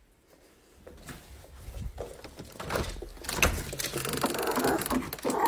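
Handling sounds of a curtain and window being moved by hand: rustling with scattered clicks and knocks, starting faint and growing louder after about a second.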